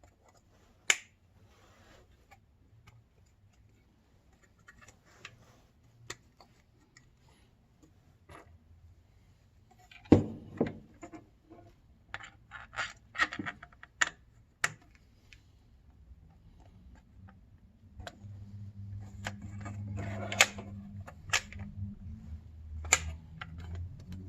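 Scattered clicks, taps and knocks of PC cooler and fan parts being handled and fitted by hand, with one louder knock about ten seconds in. A low hum comes up in the last few seconds.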